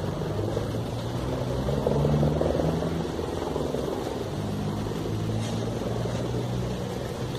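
A low, steady engine drone whose pitch shifts a little a couple of times.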